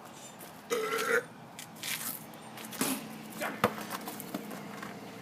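A man's single burp, about half a second long, about a second in, followed by a few short sharp knocks.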